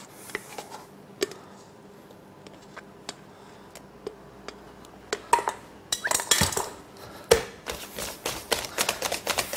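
Wire balloon whisk beating a thick cream mousse in a stainless steel bowl. A few scattered taps at first, then from about six seconds in a fast run of wire clinks and scrapes against the side of the bowl.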